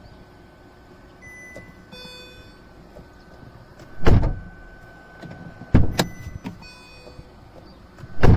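Car driver's door swung and shut, with heavy thuds about four, six and eight seconds in, and a short electronic chime near the start. It opens and closes without the earlier creak now that its loose check-strap bolt has been tightened.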